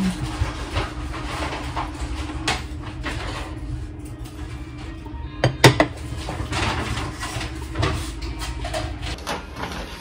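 Dishes being handled: a silicone spatula lifting pancakes out of a nonstick frying pan onto a ceramic plate, and a glass bowl set down over the plate. Scattered clinks and knocks, the loudest a sharp double clack about halfway through, over a steady low hum.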